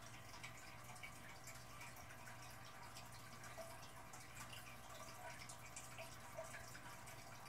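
Faint aquarium water noise: small irregular drips and trickles over a low steady hum.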